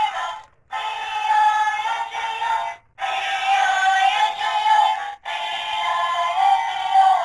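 Battery-powered walking plush toy dog playing an electronic tune with a synthetic singing voice; the short phrase repeats about every two and a half seconds, with brief breaks between repeats.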